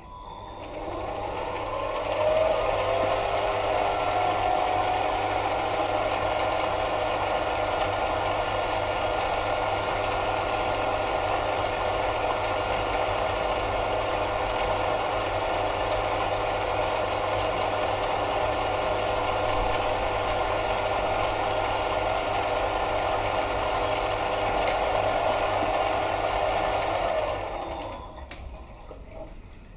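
Mini lathe spinning up, with its motor whine rising in pitch over the first couple of seconds, then running steadily while a centre drill is fed into an aluminium workpiece, and winding down near the end.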